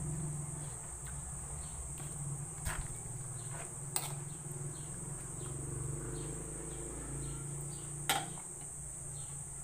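A utensil clicking sharply three times against an aluminium pot as a simmering sardine-and-cabbage soup is stirred, over a steady high insect trill and a low hum.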